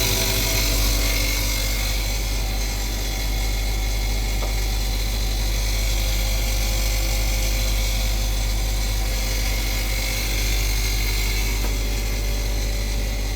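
Stand freezer's refrigeration compressor running with a steady low hum. It runs and draws current but does not build pressure, which the technician puts down to a problem inside, around the piston.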